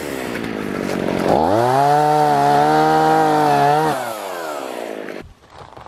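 Chainsaw running: it revs up about a second and a half in, is held at high speed for about two seconds, then drops back and stops short about five seconds in.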